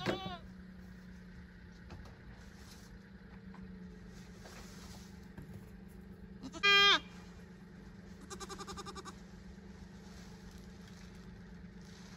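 Goats bleating: a short call right at the start, a loud bleat about seven seconds in, and a quieter, wavering bleat just after it.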